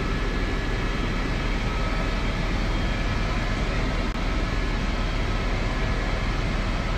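Helicopter cabin noise heard from inside: a steady, loud drone with a deep hum underneath and a faint steady whine above it.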